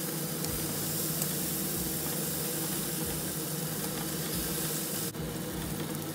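Basted beef short ribs sizzling and hissing on the hot plate of an electric smokeless indoor grill, over a steady low hum. The high hiss drops off abruptly about five seconds in.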